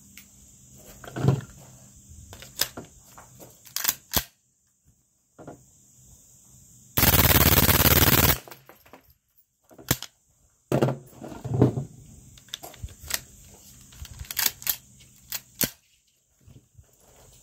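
A .22 LR M16 machine gun firing one full-auto burst of about a second and a half, about seven seconds in. Scattered single sharp clicks and knocks come before and after the burst.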